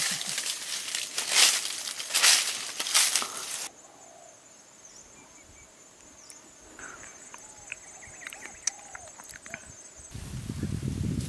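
Loud rustling and crunching of dry grass and brush, cutting off abruptly about a third of the way in. A steady, high-pitched insect drone with faint chirps and clicks follows, and a low rustling comes in near the end.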